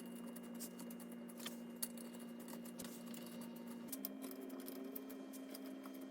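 Faint scattered metal clicks and ticks as beadlock ring bolts are dropped in and threaded by hand into an aluminium wheel, over a steady low hum that steps slightly in pitch about four seconds in.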